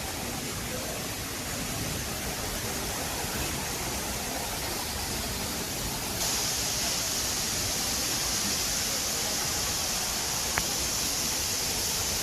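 Waterfall pouring steadily, a continuous rushing hiss. About six seconds in it turns louder and brighter, and a single sharp click sounds near the end.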